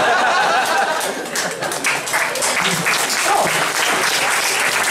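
A live comedy audience applauding after a punchline. The clapping thickens about a second in and keeps going.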